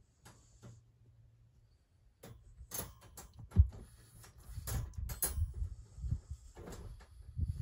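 Clicks, knocks and rattles of a wire dog crate being handled, starting about two seconds in, with one sharp knock near the middle.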